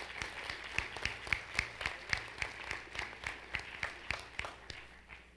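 Audience applauding, with a run of sharp nearby claps at about three to four a second standing out over the general clapping, dying away near the end.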